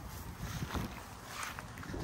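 Low rumble of wind on the microphone, with faint rustling of movement through grass.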